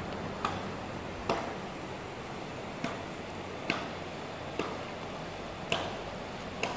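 Steady rush of river water with seven sharp ticks spaced unevenly about a second apart.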